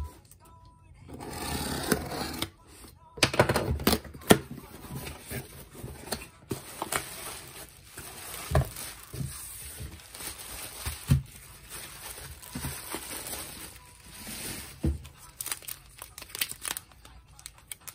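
Unboxing handling noise: a box cutter slicing packing tape on a cardboard box, cardboard flaps opening, bubble wrap rustling and cellophane-wrapped card packs crinkling. Sharp knocks and clicks come about three to four seconds in, with scattered taps and crinkles after.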